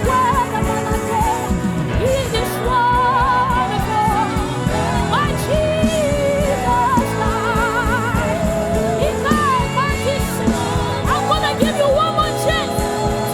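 Live gospel worship singing over instrumental band accompaniment, the voice holding long notes with a wide vibrato and sliding through melodic runs.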